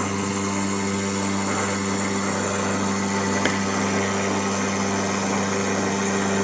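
MINIMO 3020TT desktop CNC milling machine running on test: a steady motor hum with a hiss over it, and a single click about three and a half seconds in.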